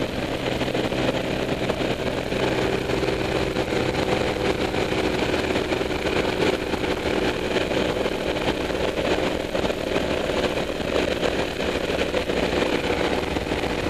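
Piston engine and propeller of a small single-engine jump plane running steadily in climb or cruise, a constant drone with air rushing in through the open door.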